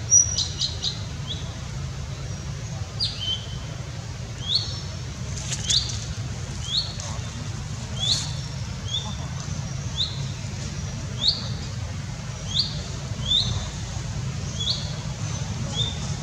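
A bird calling over and over, a short two-part chirp, a high note dropping to a lower one, repeated about every second or so. A steady low hum runs underneath.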